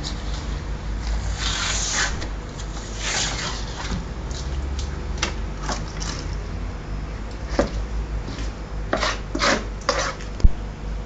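A spurdog being skinned on a board: scraping and tearing noises as the rough skin is worked off, then a run of short sharp knocks on the board, the loudest near the end, over a steady low hum.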